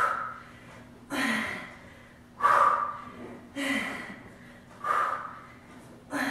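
A woman breathing hard from exertion during jackknife push-ups on an exercise ball: a sharp, loud breath about every 1.2 seconds, some with a short voiced grunt.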